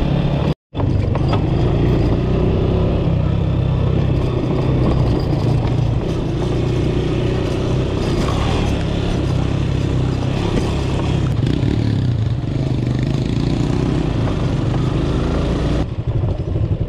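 Motorcycle engine running steadily under way, heard from on the bike, with wind and road noise and some rattle over the dirt track. The sound drops out completely for a moment about half a second in.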